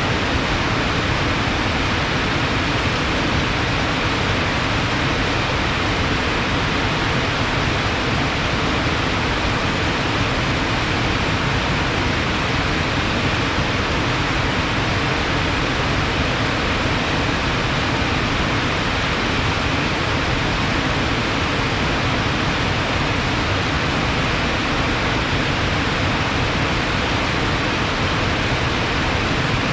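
Fast-flowing water after rain, rushing steadily and loudly without a break.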